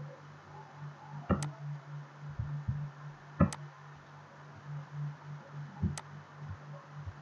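Three sharp computer mouse clicks, roughly two seconds apart, over a steady low hum, with a few soft low knocks between them.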